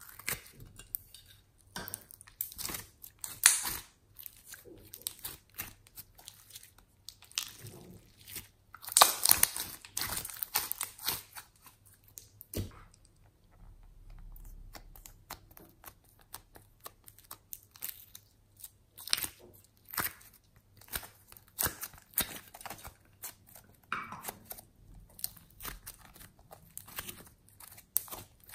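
Hands squishing, poking and kneading soft slime and clay, making irregular sticky crackles and clicks, busiest about nine seconds in and quieter in the middle.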